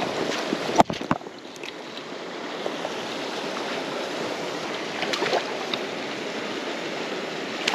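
River water running steadily, with two sharp knocks about a second in and a few fainter clicks around five seconds in.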